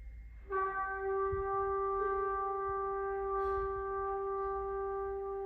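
A single long wind-instrument note from a chamber ensemble, entering about half a second in after near quiet and held steadily at one pitch.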